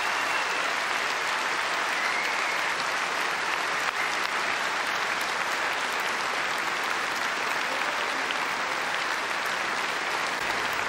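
Concert audience applauding steadily after a song.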